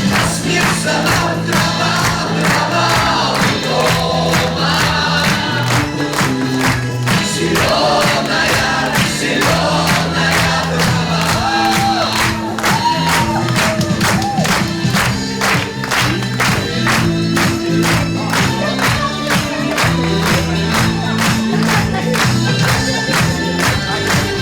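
Music with a steady beat, with a group of voices singing or chanting over it.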